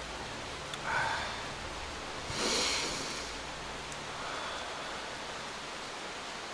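A man breathing hard through his mouth against the burning of plant drops in his eyes: a short voiced exhale about a second in, then a louder hissing breath about two and a half seconds in, over a steady background hiss.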